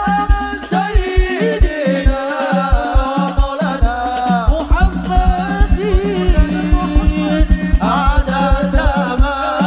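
Hadrah ensemble playing sholawat: a sung melody with long, gliding melismatic lines over hand-played frame drums and a deep bass drum beating a steady, quick rhythm.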